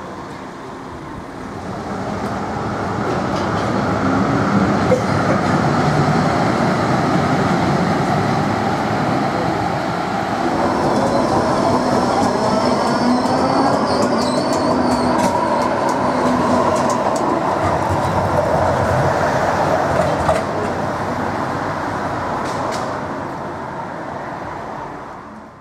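A tram running on rails, with wheel-on-rail rumble and the whine of its electric traction drive gliding in pitch as it speeds up. The sound swells about two seconds in and fades away at the end.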